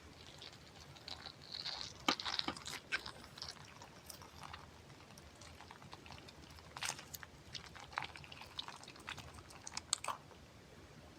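Close-miked ASMR crunching and crackling in irregular clusters of short clicks, with quieter gaps between them.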